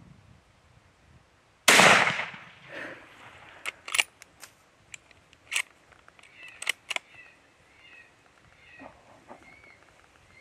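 A single suppressed rifle shot about two seconds in, with a short echo trailing off, fired at a coyote that drops in the field. Several sharp clicks follow over the next few seconds, then faint high chirps near the end.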